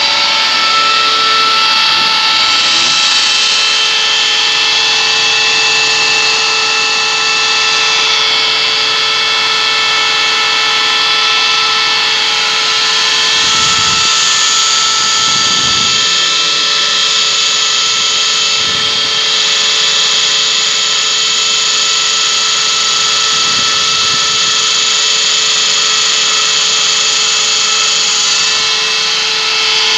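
Screw air compressor running: a loud, steady mechanical whine made of several held tones that do not change pitch.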